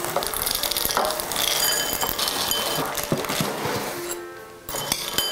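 Dry cereal poured from a box into a bowl, a dense rattling patter that stops about four seconds in, over background music.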